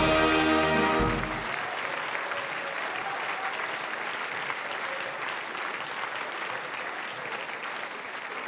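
A short held band chord, a carnival Tusch, lasting about a second, over the start of audience applause. The applause then continues steadily and eases off slightly toward the end.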